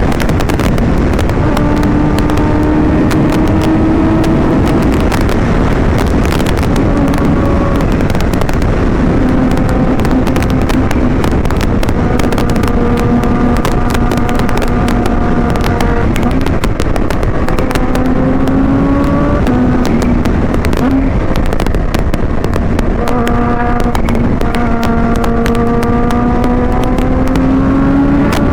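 Supercharged Kawasaki Ninja H2 inline-four with a Vandemon exhaust, pulling through the gears under way: the engine note climbs, drops back at each shift and climbs again, with many sharp cracks on top. Heavy wind rumble on the mic runs underneath.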